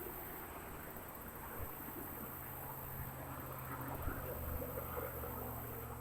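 Insects drone steadily and high-pitched, with a steady low hum underneath.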